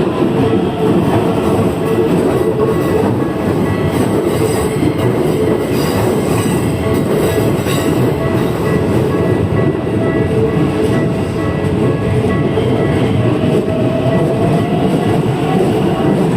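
Keikyu train running past at close range: a loud, steady rumble of wheels on rails that goes on without a break.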